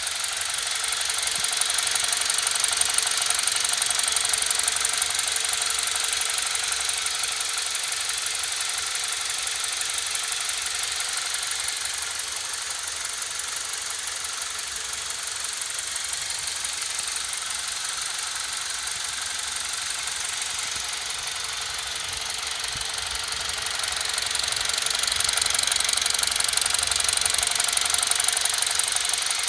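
BMW E46 318i's N46B20A 2.0-litre four-cylinder engine idling with a rapid, steady ticking from the intake area, of unknown cause; the owner suspects the crankcase ventilation (CCV) valve. The ticking swells louder near the start and again near the end.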